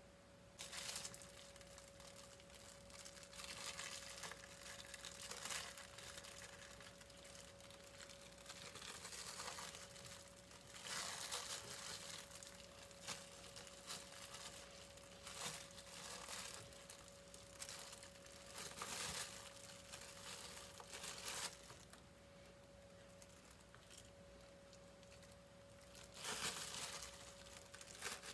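Plastic cling film crinkling in irregular bursts as hands roll a chicken breast up inside it on a plastic cutting board, over a faint steady hum.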